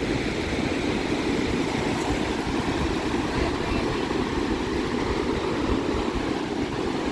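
Wind buffeting the microphone in a steady low rumble, over the continuous wash of big lake waves breaking on the beach.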